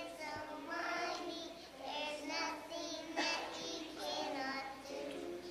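Young children singing a song together in high voices, phrase after phrase.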